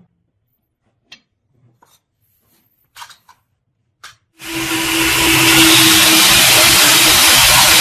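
A few light knocks and clicks of a wooden handle block being handled and fitted against a blade tang. About four seconds in, a belt sander comes in loud and steady, a motor hum under a hiss, as the wooden handle block is sanded on the belt.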